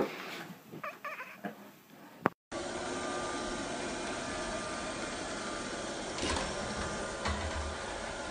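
Robot vacuum cleaner running with a steady whirring hum and faint whine tones, starting about two seconds in after a few soft knocks. A couple of dull low thumps come near the end.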